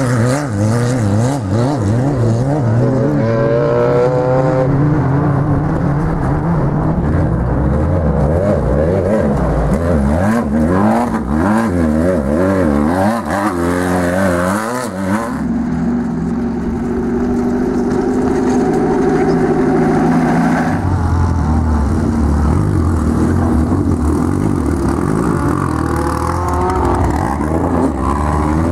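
Off-road race vehicles' engines revving hard as they drive past on dirt, the pitch rising and falling over and over with the throttle. About halfway through the sound changes abruptly to another engine, a Volkswagen Beetle race car sliding through a dirt turn.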